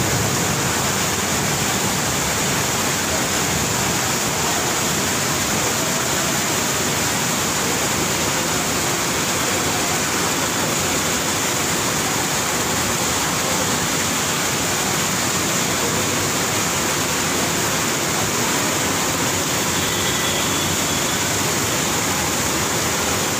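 Heavy rain pouring down onto a flooded street, a dense steady hiss of rain on standing water.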